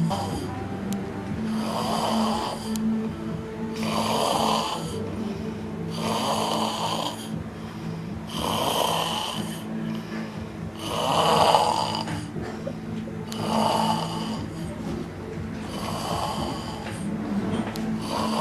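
A sleeper snoring loudly and regularly, one snore about every two and a half seconds, eight in all. The loudest comes about two thirds of the way through.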